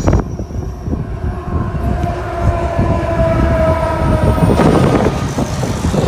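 Locomotive horn sounding one long chord of several steady notes for about three and a half seconds, over heavy wind noise on the microphone.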